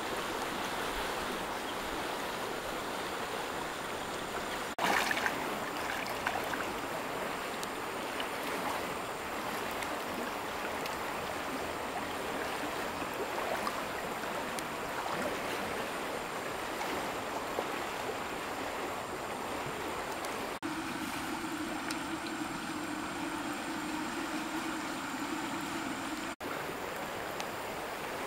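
Steady rushing of a shallow flowing river, briefly louder about five seconds in, its tone changing abruptly twice near the end.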